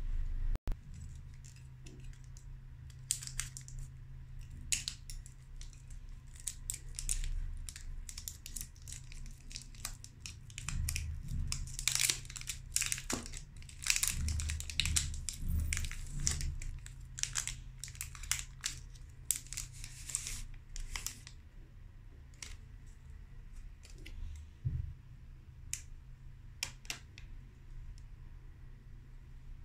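Foil wrapper crinkling and tearing as a white chocolate bar is unwrapped, in dense bursts of crackle through the middle, with scattered sharp clicks of chocolate pieces being set down and snapped apart.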